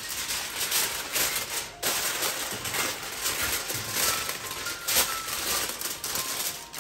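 Aluminium foil crinkling as a sheet is spread over a pot and pressed down around its rim: a dense run of small crackles, with the loudest crunch about five seconds in.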